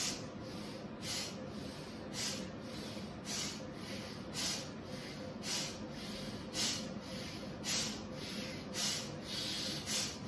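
Bhastrika (bellows breath) pranayama: forceful, hissing breaths in and out through the nose at about two strokes a second, in a steady, even rhythm.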